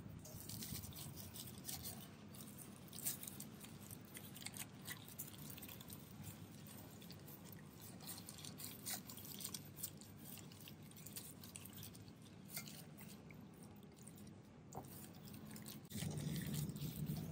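Wet squishing and light irregular clicks of food being mixed, such as meat worked into a thick sauce.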